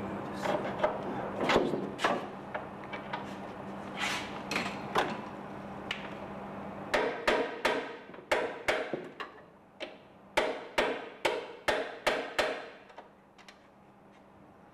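Sharp tapping knocks at the metal attachment fitting of an aircraft strut on a composite fuselage. They come scattered at first over a steady low hum that stops about halfway, then in two quick runs of about six strikes each, roughly three a second, each ringing briefly.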